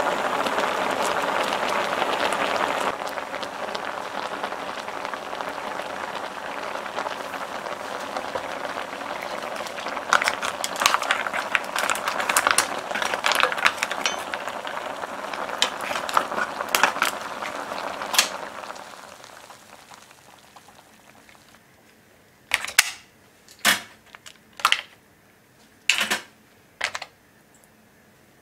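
Mussels boiling hard in a stainless steel pot, a steady bubbling hiss. From about ten seconds in, shells clatter and click against each other and the pot as they are moved about, then the bubbling fades out. Near the end come separate sharp clicks about a second apart as metal tongs pick the mussels out.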